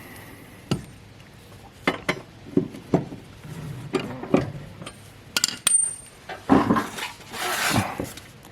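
Metal clinks and knocks of a socket, breaker bar and wooden block being set against a riding mower's steel blade and its bolt to tighten it. There is a short ringing ping about five and a half seconds in, and a longer scrape about seven seconds in.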